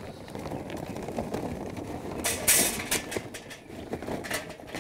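Kingsford charcoal briquettes poured from a paper bag, clattering and rattling into a metal charcoal chimney starter, with a louder rush about halfway through.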